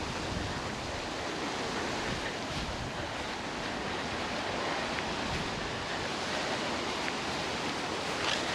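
Steady rushing wind, with wind buffeting the microphone; a brief louder rush near the end.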